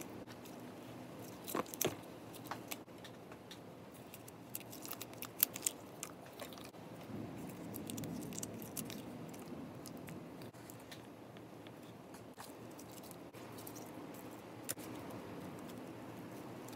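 Slime being squished and pressed by hand into a tub of foamy slime: soft, sticky squelching with scattered crackles and pops, the loudest pop a little past a third of the way in.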